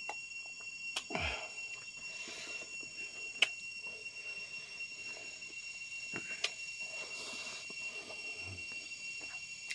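Mouth and hand sounds of a person eating rice and noodles by hand, with a sip from a metal bowl near the start and several sharp clicks, the loudest about three and a half seconds in. A steady high-pitched whine runs underneath.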